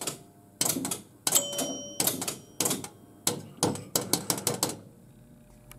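Electromechanical pinball machine, a 1973 Gottlieb Home Run, clattering as its relays and scoring mechanism step: a rapid, irregular run of sharp clacks at two to four a second, with a short ringing tone about a second and a half in.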